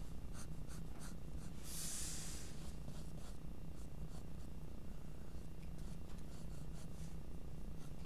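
Graphite pencil scratching on paper while sketching: a quick run of short strokes at the start, one longer, louder stroke about two seconds in, then only a few light strokes. A steady low hum runs underneath.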